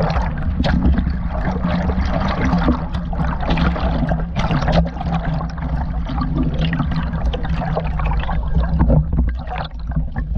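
River water sloshing, splashing and gurgling around a camera held half-submerged at the surface, with many short splashes, over a steady low hum.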